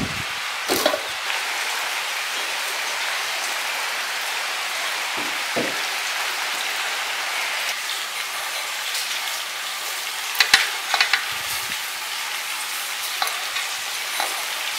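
A steady hiss, with soft knocks of strawberries being handled in enamel basins and a cluster of sharp clicks about ten seconds in as a glass scoops sugar and pours it over the berries.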